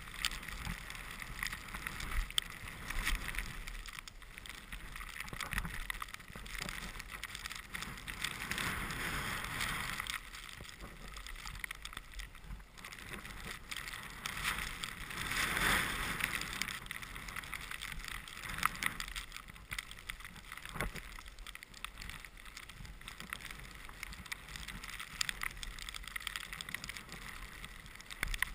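Skis hissing through powder snow on a run through trees, the hiss swelling and fading with each turn, loudest about halfway through, with wind rushing over the microphone and an occasional small knock.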